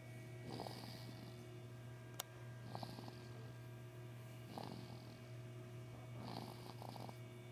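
Snoring: soft, regular breaths about every two seconds over a steady low hum, with one sharp click a little after two seconds in.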